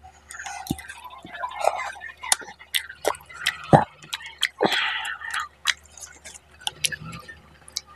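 Close-miked wet, sticky clicks and squelches of fingers mixing rice with fish curry and pulling at a cooked fish head, in irregular clicks throughout.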